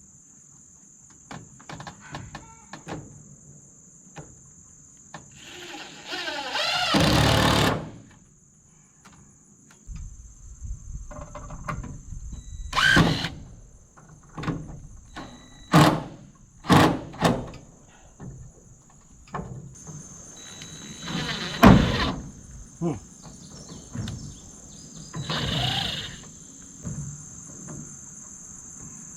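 Building work on a metal porch roof: scattered knocks and thuds, and a few longer noisy bursts, the loudest about seven seconds in and another near the end, over a steady high chirring of crickets.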